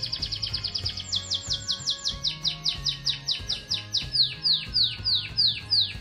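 Song canary singing: a fast, even trill of high notes, then from about a second in a run of downward-sweeping whistled notes that slow and reach lower in pitch.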